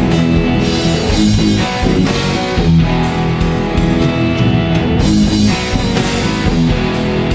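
Instrumental rock music: guitar over a drum kit at a steady, loud level, with regular cymbal and drum hits.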